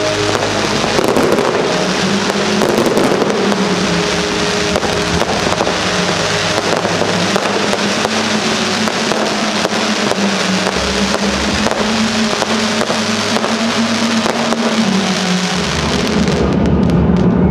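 Fireworks display: dense crackling and popping from bursting shells and crackers, over a steady low drone. The crackling dies away about sixteen seconds in, leaving the drone louder.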